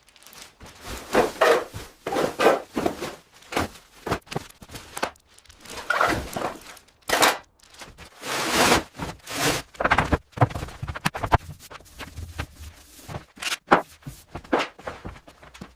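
Debris and trash being cleared by hand in a small room: irregular thuds and knocks, with scraping and rustling between them and a few footsteps.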